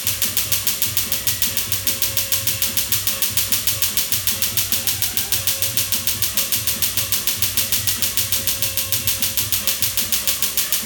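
Tattoo-removal laser handpiece firing pulses into a tattoo on the skin: an even train of sharp snapping clicks, about six a second, over a faint steady hum.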